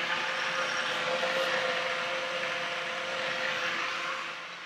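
Countertop blender motor running steadily and loudly, mixing a thick waffle batter of eggs, oats and quark; it quietens near the end.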